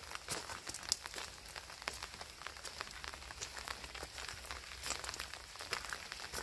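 Rain falling, with many irregular raindrop ticks close by over a soft steady patter.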